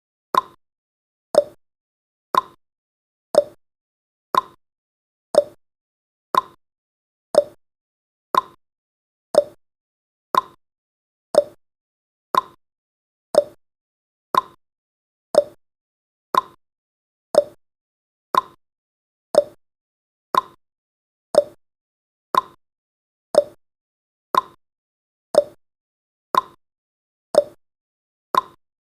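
Countdown timer's tick sound effect: a short, sharp tick exactly once a second, the ticks alternating higher and lower in pitch like a tick-tock.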